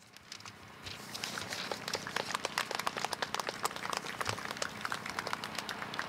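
Audience applauding, made up of many separate, scattered claps, building about a second in.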